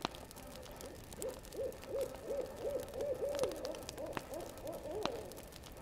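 An owl hooting: a run of about a dozen evenly spaced hoots, roughly three a second, starting about a second in, with a few sharp crackles from the campfire.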